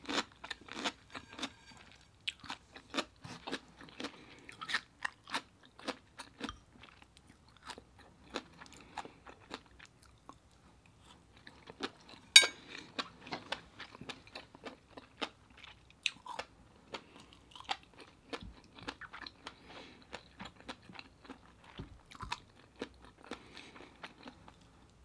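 A person chewing and biting food, with irregular crunches, and one sharper click about halfway through.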